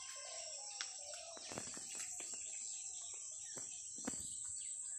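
Insects droning steadily at a high pitch, with birds calling now and then and a few light clicks and crackles.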